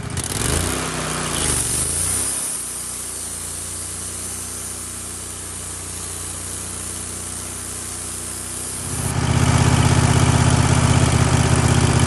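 Wood-Mizer LX150 portable bandsaw mill running, its gas engine driving the band blade through a squaring cut along a log. The engine sound shifts in pitch in the first couple of seconds, then runs steadily, and gets markedly louder about nine seconds in.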